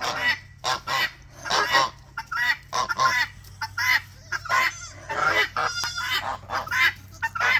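A flock of domestic geese honking over and over, short loud calls overlapping one another, agitated by a dog among them. Around six seconds in a brief rapid rattling call cuts through.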